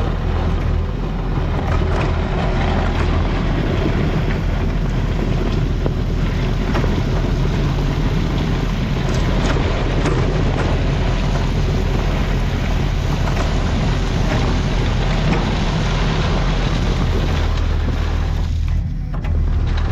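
Kubota skid steer's diesel engine running steadily under load while it grades, with a few light clicks over it. The engine eases briefly near the end.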